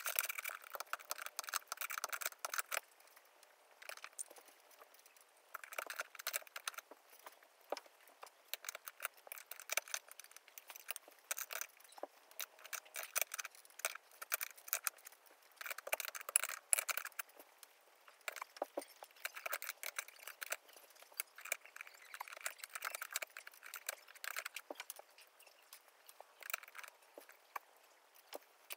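Rapid, irregular clicks, rattles and scraping as hands work the mount of a hugger ceiling fan at the ceiling, sped up so the handling noises come fast and thin.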